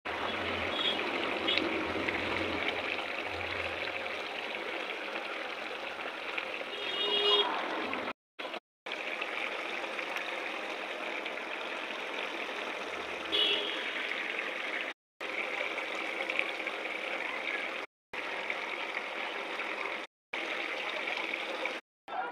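Cabbage curry simmering in a metal pan on the stove: a steady bubbling hiss that cuts off briefly several times, with a few short high chirps.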